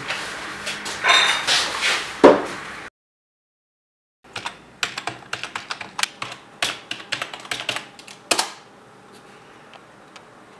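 Computer keyboard typed on in quick, irregular keystrokes for about four seconds, ending with one harder keystroke. Before it there are a few seconds of louder sound, cut off into about a second of dead silence.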